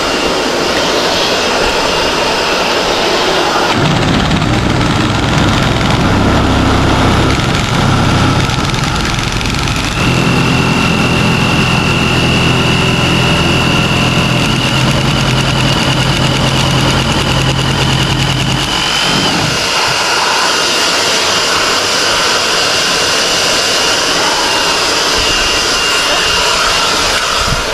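A motor-driven machine runs with a steady low hum and a high whine from about 4 s in. The whine rises slightly and stops sharply about 19 s in, over a constant background whir.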